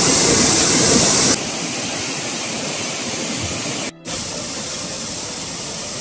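River water rushing over rocks, a steady hiss. It is louder for about the first second and a half, then drops to a quieter rush, with a brief break just before the fourth second.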